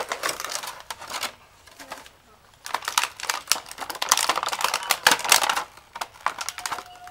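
Gift wrapping paper tearing and crinkling in quick crackly bursts. There is a short spell at the start, then a longer, louder one from about three seconds in to about six.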